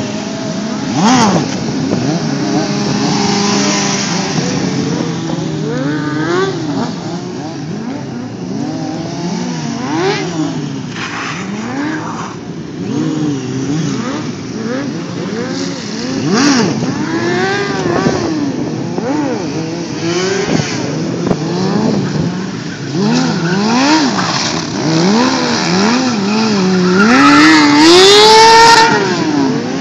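Sport motorcycle engines revving up and dropping back again and again, several bikes at once. Near the end the loudest one climbs in a long hard rev and falls away.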